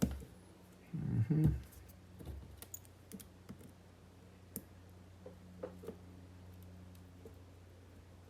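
Small metal clicks and taps as a Kaba 8 dimple lock and lock-picking tools are handled and worked, with a heavier cluster of handling knocks about a second in. A steady low electrical hum runs underneath.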